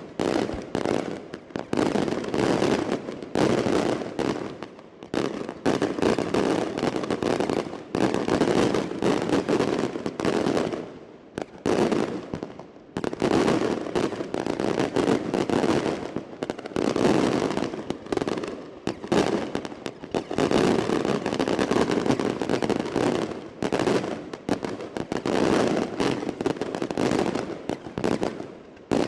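Daylight fireworks battery: aerial shells and firecrackers bursting in rapid, overlapping bangs and crackles. The bangs come in waves, with short lulls about five, twelve and twenty-eight seconds in.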